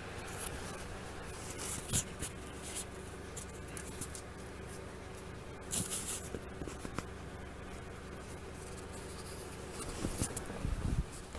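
Scattered scratchy rustling and clicking, heaviest about two seconds in, around the middle and near the end, with a few soft low knocks at the end, over a steady low hum.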